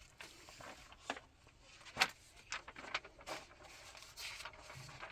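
Paper documents being handled: scattered light rustles and taps, the sharpest about two seconds in.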